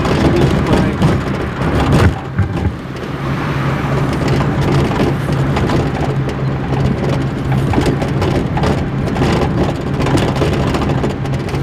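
Car cabin noise while driving: a steady engine drone and road rumble with a harsh crackle over it.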